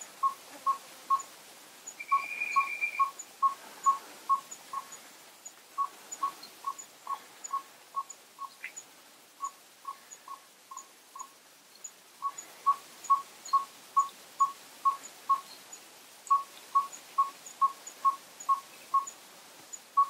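Yellow-rumped tinkerbird calling: a single short note repeated evenly, about three to four times a second, in runs of several notes separated by brief pauses.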